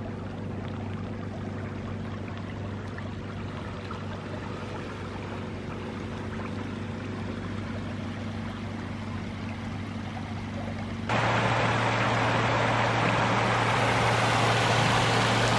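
Floodwater rushing and pouring, a dense steady rush with a low steady hum beneath it. About eleven seconds in it cuts to a louder recording of the same rush.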